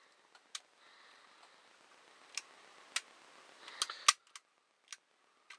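Sharp metallic clicks from a deactivated Beretta 92FS pistol being worked by hand, its safety lever and hammer flicked with the safety on. About seven clicks are spread irregularly, the loudest about four seconds in.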